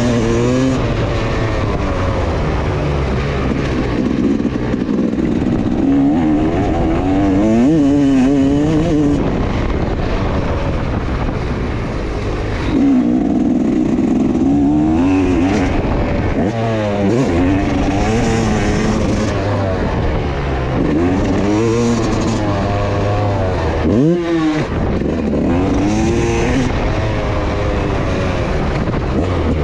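Motocross bike engine heard on board, its pitch repeatedly climbing under throttle and dropping away as the rider shifts and backs off around a dirt track, with a sharp drop and quick pick-up about three-quarters of the way through.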